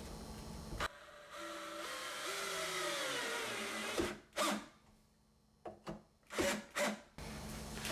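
Cordless drill-driver driving a screw into a wooden door, its motor whine dropping in pitch as the screw tightens. This is followed by a few short clicks and knocks.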